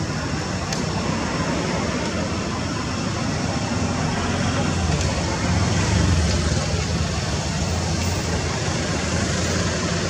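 Steady road traffic noise, a low rumble of passing vehicles that grows louder about six seconds in.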